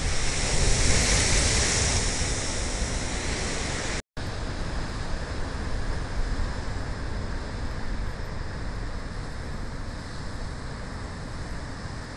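Heavy storm surf breaking against a concrete sea wall: a loud crash and hiss of spray in the first couple of seconds, then the steady rumble and wash of breaking waves with wind buffeting the microphone. The sound drops out for a moment about four seconds in.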